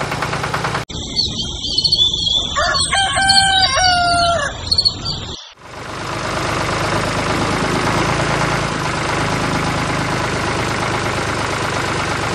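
A rooster crowing once, a long call of about three seconds beginning about two seconds in, with small birds chirping over it. It is followed by a steady whirring noise.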